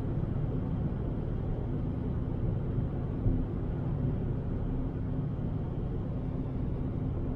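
Fiat Bravo 1.6 driving, heard from inside the cabin: a steady low drone of engine and tyres on a snow-covered road, with a faint steady hum running under it.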